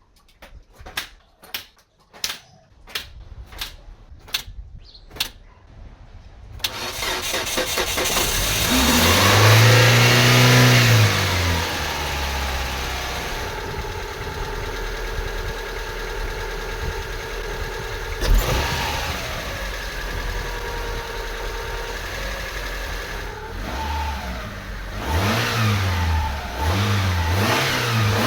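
2003 Mitsubishi Lancer ES engine started for the first time on fresh oil and a new oil filter: a run of sharp clicks, then about six seconds in the engine catches, revs up and back down, and settles into a steady idle. Near the end the throttle is blipped several times in quick succession.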